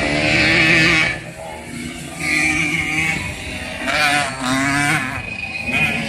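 Racing moped engines revving hard and easing off as the mopeds pass through the turns, the pitch rising and falling with each rev.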